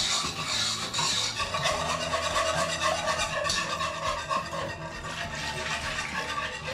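Wire whisk stirring and scraping round a non-stick pot, beating a flour, sugar and egg-yolk paste as milk is poured in for a vanilla pastry cream.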